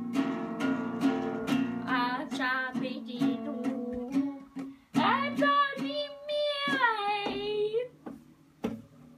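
Acoustic guitar strummed in a steady rhythm, about two strums a second, with a girl singing along in long, wavering notes from about two seconds in. The strumming and singing stop about a second before the end, leaving a few stray plucks.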